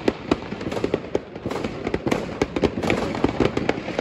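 Fireworks going off: many sharp bangs and pops at irregular intervals over a steady crackling background.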